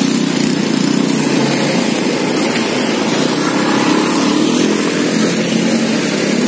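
Road traffic at close range: motorcycle engines and a small diesel dump truck's engine running as they move slowly past, a steady low drone.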